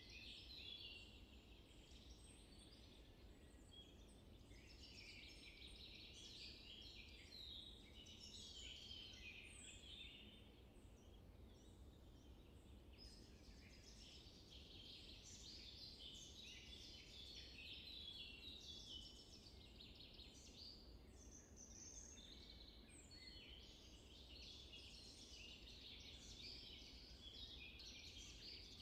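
Faint chorus of small birds chirping and twittering, many short calls overlapping throughout, over a low steady background noise.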